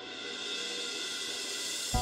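Background score: a cymbal swell, a hiss that builds and brightens, ending in a sudden low hit just before the melody comes back in.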